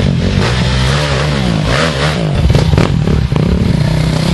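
Dirt bike engines revving unevenly, their pitch rising and falling as the riders work the throttle to climb over boulders, with a few sharp knocks from the bikes hitting rock.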